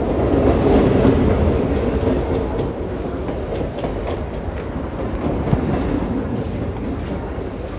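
A Mumbai suburban electric local train running as it comes into a station platform. It is loudest about a second in, then eases off as it slows.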